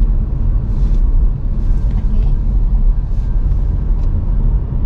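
Steady low road and tyre rumble of a VinFast VF5 electric car driving, heard inside the cabin.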